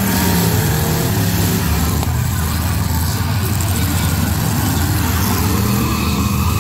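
Several demolition derby cars' engines revving hard together at once, their pitch rising and falling as the cars push against each other and spin their wheels.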